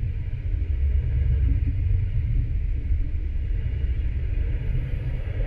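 Double-stack container freight train rolling past close by: a steady, loud rumble of wheels on rail.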